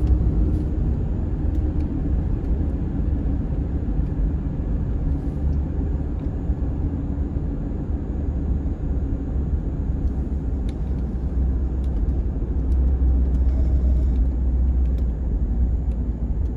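Car driving at low speed, heard from inside the cabin: a steady low rumble of engine and road noise that swells slightly about thirteen seconds in.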